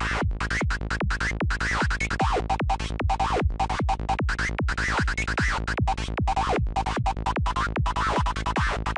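Dark FM-style psytrance lead from the Native Instruments Massive software synthesizer, looping a fast, even stream of short notes at 150 BPM, each note dropping in pitch. Its bright upper tones keep shifting as the oscillator feedback is moved to different points in the routing, changing the character of the sound.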